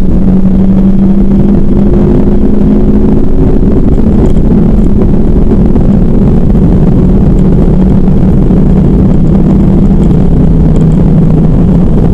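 2010 Ford Focus RS's 2.5-litre turbocharged five-cylinder engine driving hard along a race-track straight, heard from inside the cabin as a loud, steady drone. Its pitch shifts about three to four seconds in and sinks slowly over the last few seconds.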